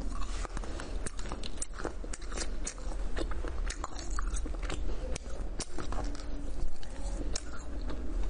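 Close-miked crunching and chewing of a crunchy candy bitten off a stick, with many sharp, irregular crunches.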